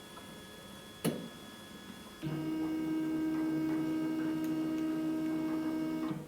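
3D printer's stepper motors whining steadily as the print head drives, starting abruptly about two seconds in and cutting off just before the end; a single sharp click sounds about a second in.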